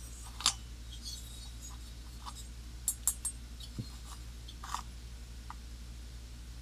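Light handling noises, a few soft clicks and rubs, as a new aluminium chainsaw cylinder is turned over in the hands: one about half a second in, a short cluster around three seconds, another near five seconds. A steady low hum lies under it all.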